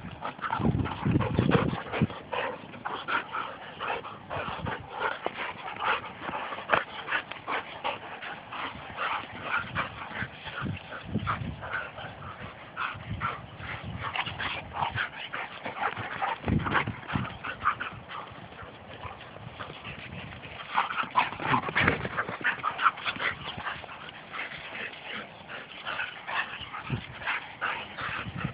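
Two Labrador retrievers play-wrestling, making a dense, irregular run of short dog noises all the way through, with no pause.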